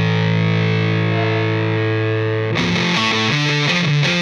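Background rock music with distorted electric guitar: a held chord, then about two and a half seconds in a fast rhythmic riff starts.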